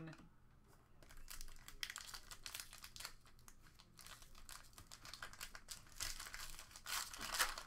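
Trading card pack wrapper being torn open and crinkled by hand, a dense crackling that starts about a second in and is loudest near the end.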